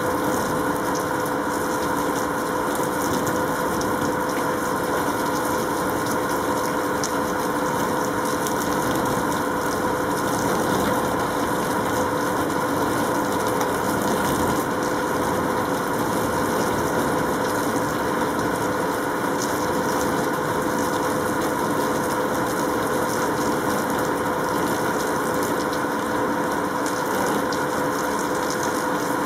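Steady mechanical hum, unchanging throughout, with several held tones over a noisy wash, like a motor or fan running.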